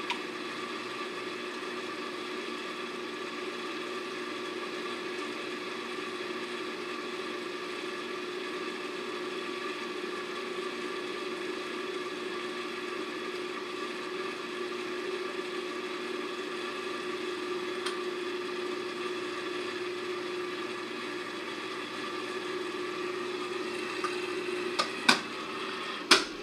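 Pro-Tein Clean Model 62525A protein skimmer running: a steady pump hum with water bubbling through the foam column. Near the end come a few sharp knocks as its lid is handled.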